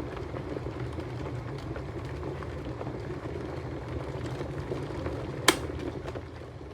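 Water heating toward the boil in a Proctor Silex 1-litre electric kettle: a steady bubbling hiss with faint crackles, and a single sharp click about five and a half seconds in.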